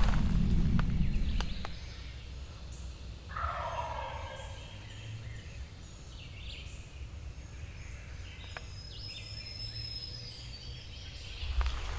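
A wild turkey gobbler gobbles once, about three seconds in, heard at a distance. A low rumble covers the opening couple of seconds, and faint songbird notes come later.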